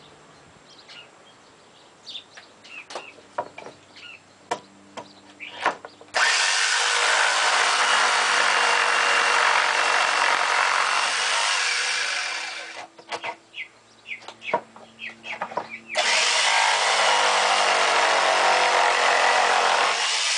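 Electric jigsaw cutting wood in two runs, about six seconds and then about four seconds, with a short pause between them. A few light knocks and clicks come before the first cut.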